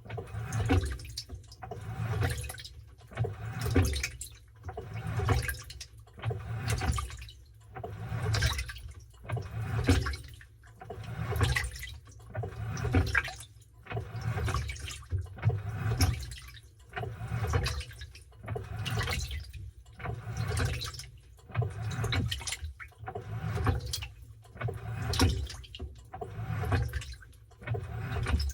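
Washing machine in its wash cycle with a load of towels: water and wet towels sloshing in regular surges, about one every second and a half, as the tub agitates back and forth.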